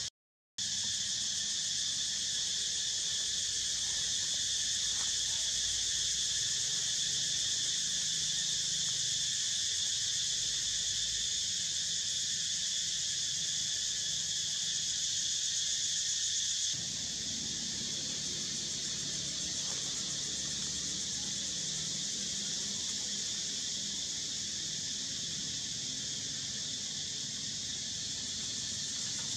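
Steady high-pitched chorus of insects. It drops out for a moment just after the start and steps slightly quieter a little past halfway.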